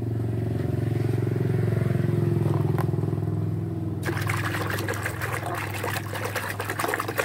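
An engine runs with a steady low drone, loudest around the middle. From about four seconds in, water splashes and sloshes as a hand churns a plastic toy figure in a basin of soapy water.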